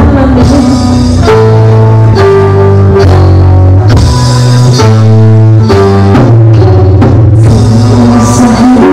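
Live music from an amplified electronic keyboard: an instrumental passage of held chords over a bass line and a steady drum beat. A woman's singing voice comes back in near the end.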